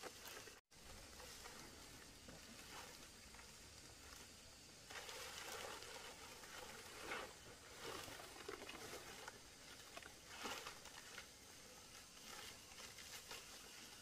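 Faint rustling and crackling of palm fronds being handled and laid as roof thatch, busiest in the middle with a few sharper rustles. The sound cuts out for an instant just under a second in.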